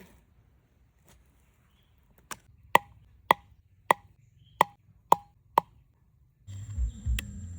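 Seven sharp knocks, about two a second, each with a brief ringing tail, like a hard object striking something hard. Near the end a louder low-pitched noise with a thin steady high whine sets in.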